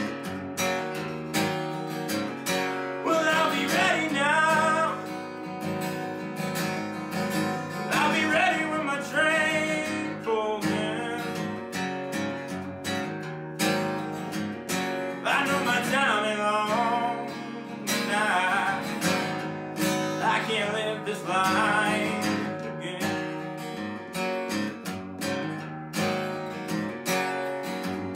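Gibson steel-string acoustic guitar playing a blues instrumental break, with strummed chords and picked lead lines in which single notes are bent and waver in pitch.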